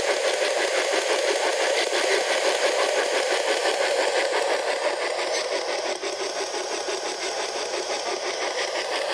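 P-SB11 spirit box sweeping through radio frequencies: a steady hiss of radio static, chopped into a fast, even rhythm by the sweep.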